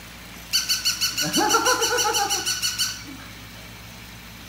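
Battery-powered toy puppy's sound chip giving a rapid run of high electronic pulses, about nine a second, starting about half a second in and stopping about three seconds in. Partway through, the husky puppy gives a rising, drawn-out howl-like call over it.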